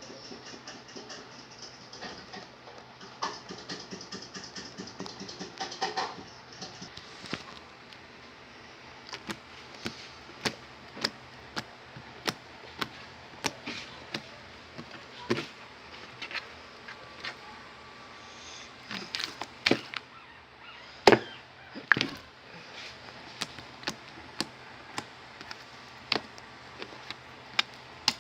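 Slime being squeezed and worked by hand, making wet squishing and a string of irregular sharp pops and clicks as air pockets burst. A quick fluttering run of small pops comes early, and the loudest pops come about three quarters of the way through.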